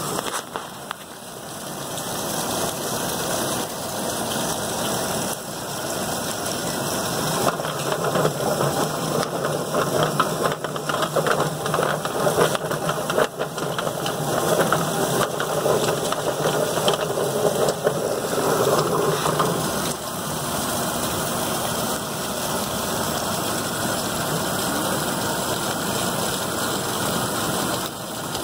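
Yardbird drum chicken plucker running: its motor spins the rubber-fingered plate with a scalded chicken inside while a hose sprays water into the tub, a steady mechanical hum and wash with scattered knocks.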